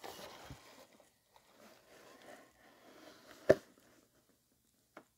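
Faint rustling and scraping of a cardboard box and its contents being handled and pulled apart, with one sharp knock about three and a half seconds in and a small click near the end.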